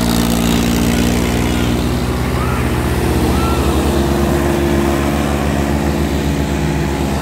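Diesel farm-tractor engines running steadily under load with an even low throb, as they strain to pull harrows out of deep sand.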